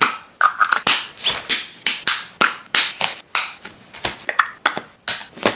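Small plastic toiletry bottles, tubes and jars handled and packed into a fabric toiletry bag: a quick, irregular run of taps, clicks and rustles.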